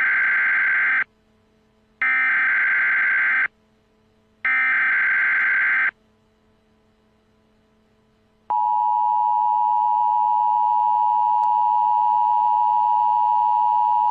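Emergency Alert System alert: three digital SAME header bursts, each about a second and a half long with a second's gap between them, followed about eight seconds in by the steady EAS attention-signal tone.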